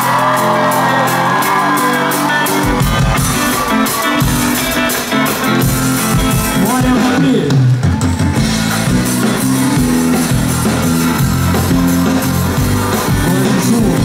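Rock band playing live through a festival PA, with electric guitars and drum kit. The bass and kick drum come in about three seconds in.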